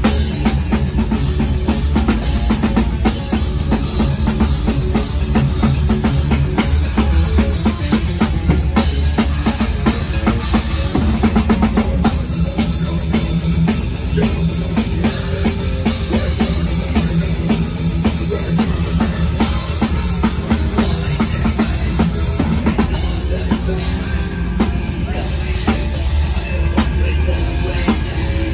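Technical death metal band playing live: distorted electric guitar over dense, fast drumming with heavy bass drum, heard close to the stage with a strong low end.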